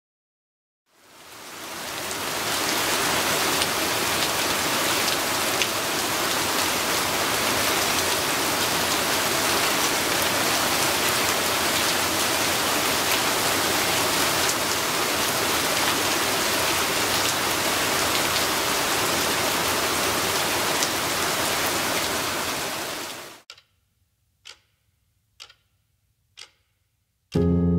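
Steady rain falling on a wet street, fading in about a second in and cutting off abruptly near the end, followed by a few faint ticks.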